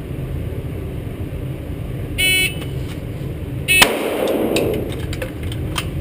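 Shot-timer start beep, then a second par beep 1.5 s later, followed almost at once by a single 9mm shot from a Glock 17C pistol drawn from the holster. A few faint ticks follow the shot. The shot comes at 1.67 s, just over the 1.5 s par.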